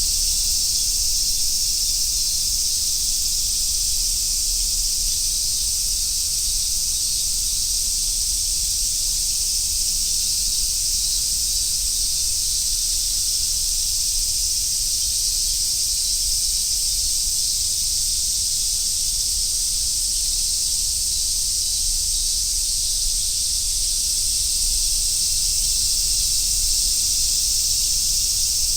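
Cicadas chorusing on a summer day: a dense, steady, high sizzling hiss with no breaks or pulses.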